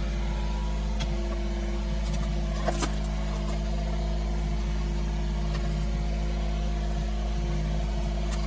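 Yanmar B22 mini excavator's diesel engine running steadily, the audio sped up to double speed, with a few short sharp clanks, the loudest a pair about two and a half seconds in.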